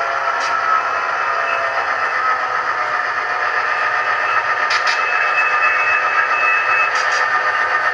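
HO-scale model train rolling past: a steady mechanical drone from the model diesel locomotives, with sharp clicks in pairs as the wheels cross rail joints near the middle and again near the end.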